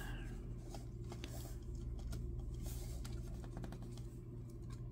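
Light plastic clicks and rubbing from a small S.H. Monsterarts Rodan action figure's joints as fingers adjust its feet and arms, scattered irregularly over a steady low hum.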